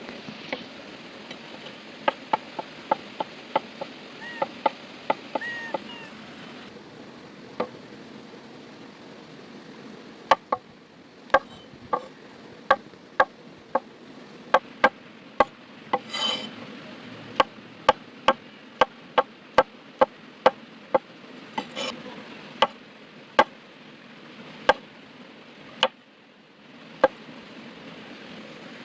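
Knife chopping on a wooden cutting board: sharp knocks, one or two a second at an uneven pace, over the steady rush of a river.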